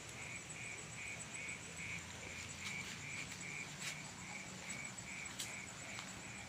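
Night-time chorus of insects and frogs: a steady high trill with a repeated chirping call pulsing about four times a second, and a few faint clicks.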